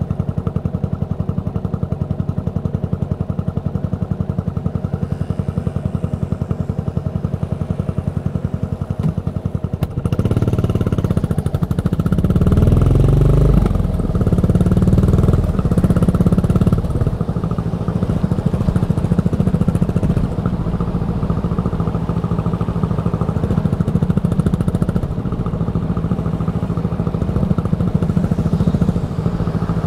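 Yamaha SR400 single-cylinder engine through a Goods tapered cone slip-on muffler, running steadily at low revs, then suddenly louder about ten seconds in. The revs climb twice with a gear change between as the bike accelerates, then settle into a steady run.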